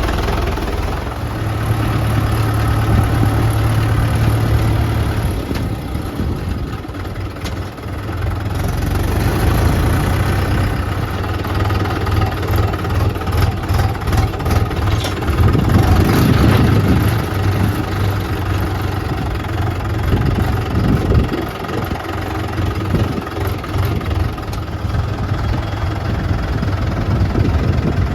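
Heavy diesel engines of a JCB 3DX backhoe loader and a Swaraj 843 XM tractor running, the level rising and falling as the loader works. A few knocks stand out in the middle and later on.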